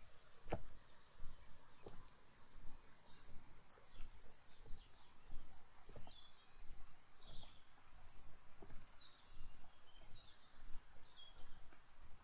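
Footsteps walking along a lakeside path at a steady pace, about one and a half steps a second. Small birds chirp short high calls through the middle.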